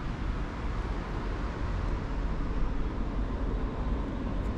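Distant rumble of an approaching freight train hauled by diesel locomotives: a steady low rumble under a hiss, slowly growing louder.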